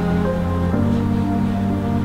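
Soft background music of slow, sustained chords, changing chord about three quarters of a second in.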